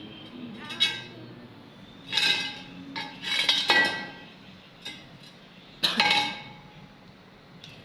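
Metal objects knocking together: several irregular clinks and clanks, each ringing briefly, with a cluster around the middle and a last loud one about six seconds in.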